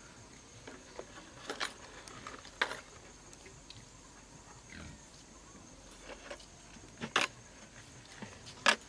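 Light clicks and taps of plastic and glass spice jars and a steel bowl being picked up, opened and set down: a handful of short knocks, the loudest a close pair about seven seconds in and a single one near the end.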